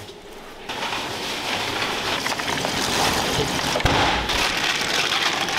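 Water running steadily into a washing machine tub, with a low thud about four seconds in.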